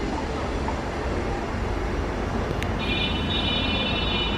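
Steady distant city traffic noise with wind rumbling on the microphone. About two and a half seconds in, a click and then a thin high-pitched tone that holds for over a second.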